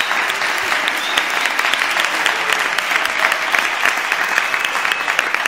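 Audience applauding after a dance performance: many hands clapping at once in a dense, steady clatter.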